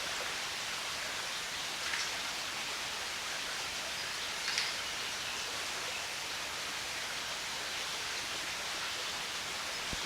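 Mountain stream rushing steadily over rocks, an even wash of water noise, with two faint brief ticks about two and four and a half seconds in.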